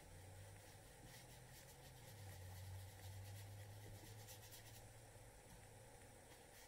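Near silence: faint scratchy strokes of a paintbrush laying paint on watercolour paper, over a low hum.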